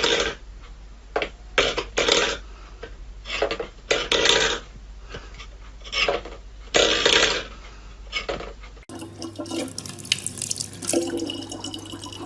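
A cat pawing and tilting a stainless steel bowl on a wooden floor, metal scraping and clattering in a series of short, irregular bursts. About nine seconds in this gives way to a thin stream of water running from a tap into a plastic bottle.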